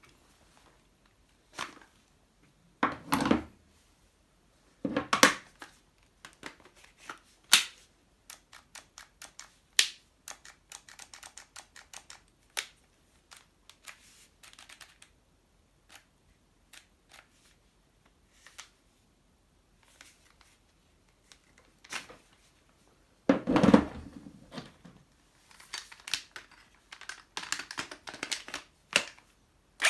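Handling of cordless power tools: scattered sharp plastic clicks and knocks, with three heavier thumps as tools are put down or batteries fitted.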